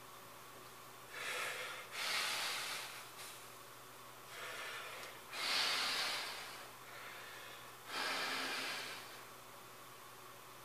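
A man breathing hard from the strain of holding bodybuilding poses. There are about five loud rushing breaths, in and out, each lasting about a second, with short pauses between them.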